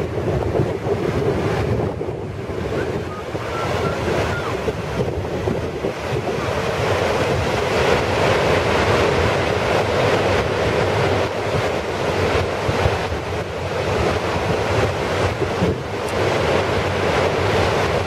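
Steady rush of the Chorrillo del Salto waterfall, mixed with wind buffeting the microphone; it grows somewhat louder after about six seconds.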